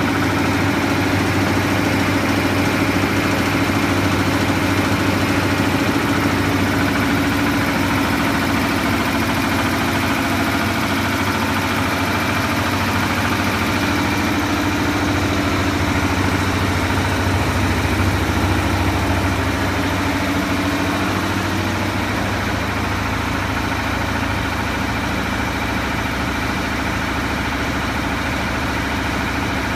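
DAVY MF-50 mini CNG compressor running loaded with its cooling fan on, a steady mechanical hum; it is compressing gas to about 19 MPa. The hum gets a little quieter about two-thirds of the way through.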